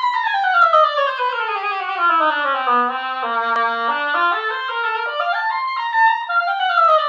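Oboe played on a freshly scraped day-one reed: quick runs down to the low register, back up, and down again. The player afterwards calls it not a horrible day-one reed.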